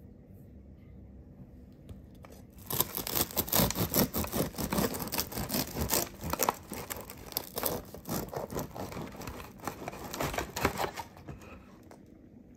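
Bread knife sawing through the crisp, dark crust of a round Maltese sourdough loaf: a dense crackling crunch of quick back-and-forth strokes that starts about three seconds in and stops near the end.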